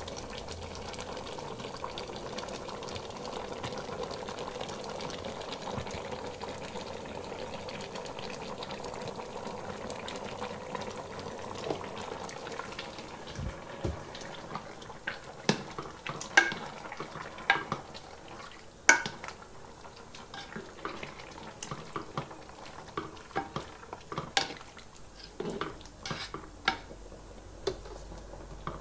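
Pot of pork puchero boiling on the stove. From about twelve seconds in, sharp clinks and knocks of a utensil against the pot, as the pot is stirred.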